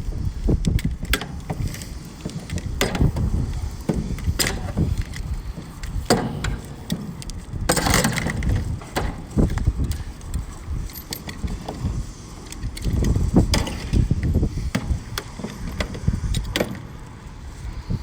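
Grain bin temperature/moisture cable being fed by hand down through a grommeted hole in the steel bin roof, its sensor pods and cable knocking and rattling against the metal in scattered clicks, with a sharper clatter about eight seconds in. A steady low rumble runs underneath.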